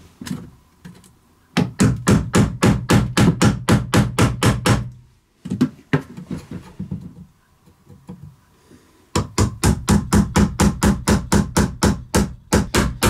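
A hammer taps quickly on the end of a painter's tool, driving its blade into the stapled seam of particle-board cabinet trim to work it loose. The taps come about five a second in two long runs, with a few scattered taps between them.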